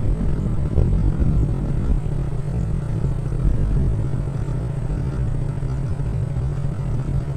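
Small motorbike engine running steadily at cruising speed, with wind rumbling on the microphone.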